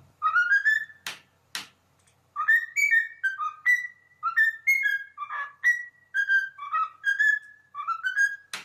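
Cockatiel whistling a tune: a long string of short, clear notes stepping and gliding up and down, with two sharp clicks about a second in.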